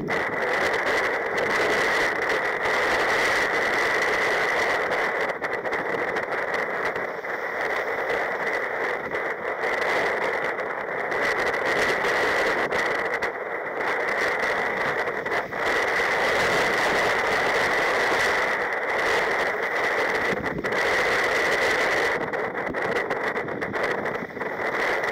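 Steady rushing noise of strong wind and rough, breaking sea around a sea kayak, a constant hiss with no pauses.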